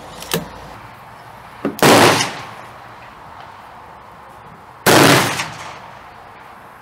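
A click near the start, then two loud gunshots about three seconds apart. The second is the H&R Tamer single-shot shotgun firing a 9mm Luger round through a Short Lane chamber adapter.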